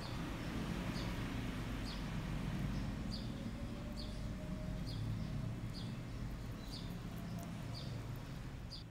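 A short high chirp repeating about once a second, over a steady low background rumble and hiss.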